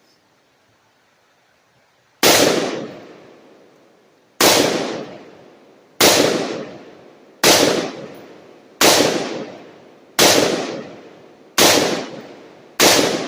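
Eight gunshots fired at targets, the first about two seconds in, then one every one to two seconds, each sharp crack trailing off in a long echo.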